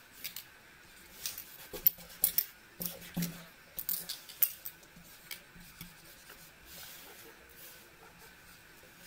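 Sharp clicks and taps from a paint marker and paper stickers being handled on a desk mat, a quick irregular cluster over the first five seconds. After that come only a few faint, softer handling sounds.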